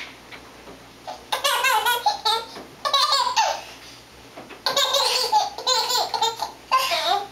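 A young child laughing hard in four high-pitched bursts of giggles, with short pauses between them.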